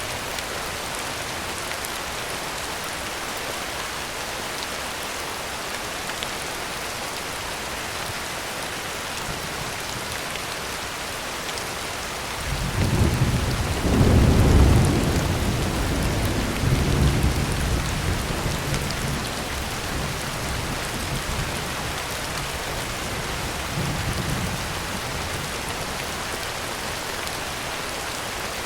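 Heavy rain pattering steadily on a tin roof. Thunder rolls in about halfway through, a deep rumble that swells, peaks and fades over several seconds, with a fainter rumble a few seconds later.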